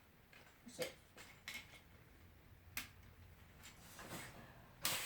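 A few light clicks and knocks, spaced out, with the loudest near the end.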